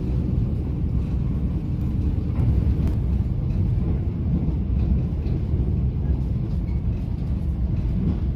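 Mugunghwa-ho passenger train running, a steady low rumble.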